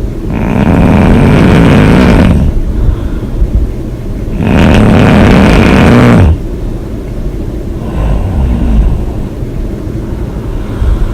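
A woman snoring loudly: two long snores, each about two seconds, about four seconds apart, then softer breathing noise.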